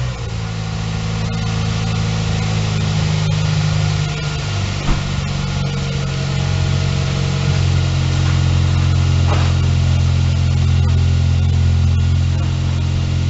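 Toyota Echo's 2NZ-FE 1.3-litre four-cylinder engine idling steadily just after start-up. It is left running while the fuel pump plug is pulled to depressurise the fuel system.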